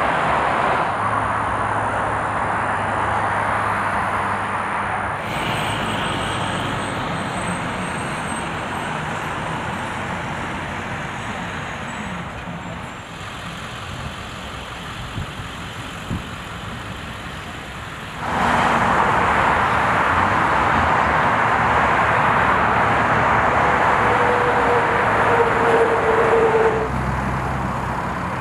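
Road traffic: passing vehicles with a steady hiss of tyres and engines, fading over the first part, then louder again from about two-thirds of the way through until it drops off abruptly near the end.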